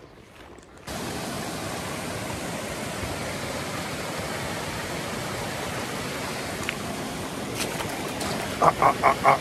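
Mountain stream rushing over rocks, starting suddenly about a second in as a steady noise of running water. Near the end a rapid run of short, loud sounds rises over it.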